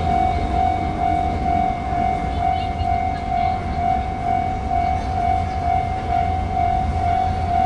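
Japanese railway level-crossing warning bell ringing, a single electronic tone pulsing on and off at an even, rapid beat, with a low rumble underneath.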